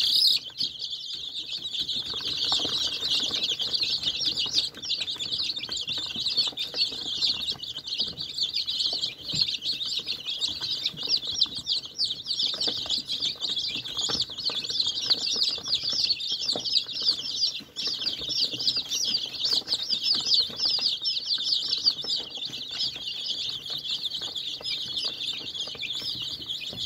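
A brood of baby chicks peeping continuously, many high-pitched cheeps overlapping into a dense chorus. A brief louder noise comes right at the start.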